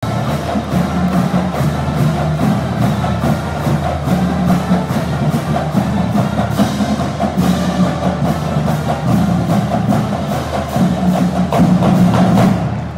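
Loud dance music with a steady, driving percussive beat over a bass line, which drops away abruptly near the end.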